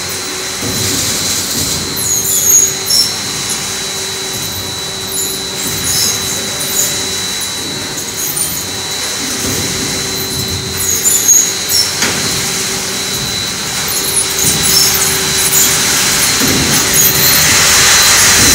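Rotating stainless-steel drum of a caramel popcorn machine running with caramel popcorn tumbling inside. There is a steady high whine and a low hum, scattered high squeaks, and the sound grows louder near the end.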